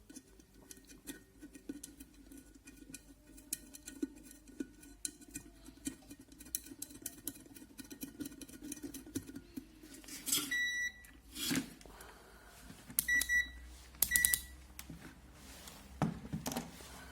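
Small clicks and taps of hand work as a nut is refitted on an electric kettle's base, over a low steady hum. In the second half come three short high electronic beeps and a couple of louder knocks.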